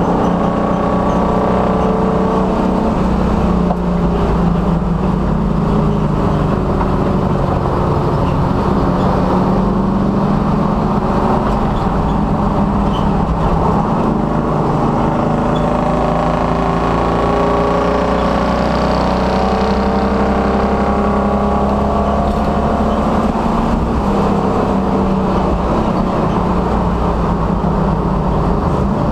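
A 1966 Dodge Dart race car's engine running hard on track, its pitch rising and falling as the driver accelerates and lifts through the corners, heard from a hood-mounted camera.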